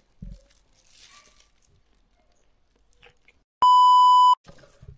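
A steady, loud test-tone beep of the kind played over TV colour bars, lasting under a second and cutting off abruptly, used as an edit gag. A few faint soft chewing sounds come before it.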